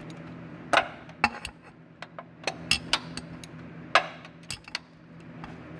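Metal hand tools, a wrench and socket, clinking and tapping against metal at irregular intervals while the starter mounting bolts are worked loose, over a steady low hum.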